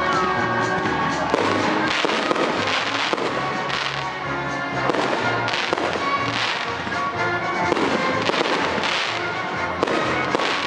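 Aerial fireworks shells bursting in the sky, one sharp bang every second or two.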